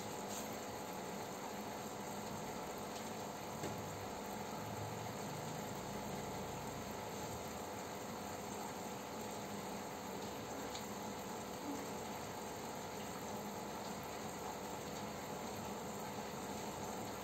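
Aquarium filter and aeration running: a steady bubbling, watery hiss with a faint even hum underneath.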